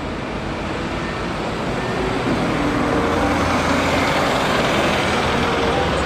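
Single-deck city bus driving past: engine and tyre noise growing louder over the first few seconds and staying loud as it goes by.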